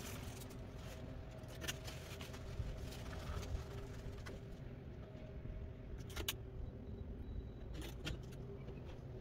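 Scattered clicks and light metallic rattles of computer hardware being handled as a motherboard and its CPU cooler are taken off and swapped, over a steady low hum. The sharpest clicks come about six and eight seconds in.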